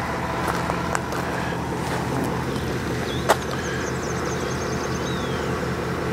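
A vehicle engine idling steadily, with faint high chirps and a short trill over it. A single sharp click about three seconds in.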